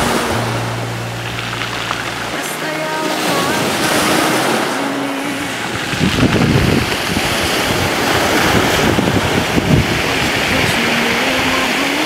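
Sea surf breaking and washing up a pebble shore in a continuous rush, with wind buffeting the microphone in gusts during the second half.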